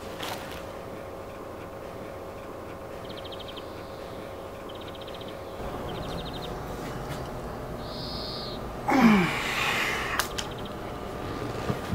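A man's single loud, strange cough about nine seconds in, a hoarse, hoot-like burst whose pitch falls away, the comically 'crazy' cough of a sick man.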